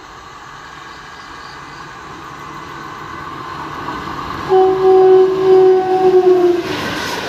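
WAP-4 electric locomotive of an express train approaching at about 110 km/h, its rumble growing, then sounding its horn in one long, loud blast of about two seconds that sags in pitch at its end. Near the end the rush of the train passing close by begins.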